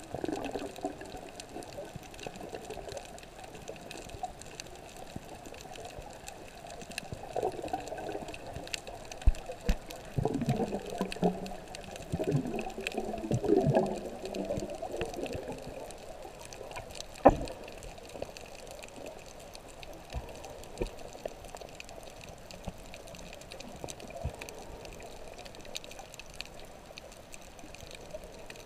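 Underwater sound through a GoPro's waterproof housing: a steady muffled water rush, with bursts of bubbling gurgles in the middle stretch. Scattered faint clicks run throughout, and there is one loud sharp click a little after halfway.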